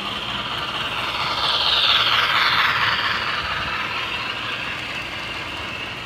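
Model trains running on a layout track: the whir and rattle of a model steam locomotive and its passenger cars rolling past close by. The sound swells to its loudest about two seconds in, then fades.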